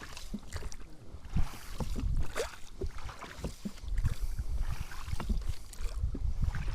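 A small boat being rowed: oars knocking and splashing in the water in irregular strokes about once a second.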